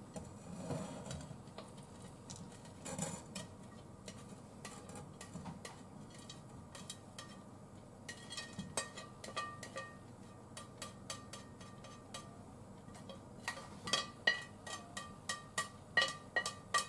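A spatula scraping and tapping against a plate and the rim of a frying pan as cabbage and pork are pushed off the plate into the pan: a run of light clinks, some with a short ring, coming thick and fast near the end.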